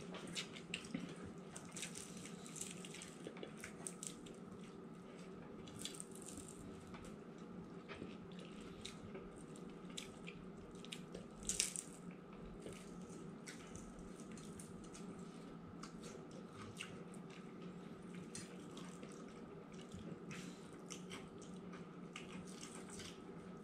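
Quiet eating sounds: scattered small crunches and clicks of someone chewing crispy fried sea bream, with one louder click about halfway through. A steady low hum runs underneath.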